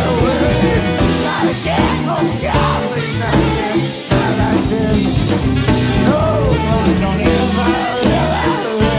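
Live rock band playing an instrumental stretch of a song, a lead line arching up and down in pitch over the full band.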